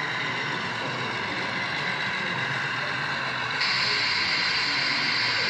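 Steady background noise of model trains running in an exhibition hall, with faint steady high tones. About three and a half seconds in, a steady high hiss starts abruptly.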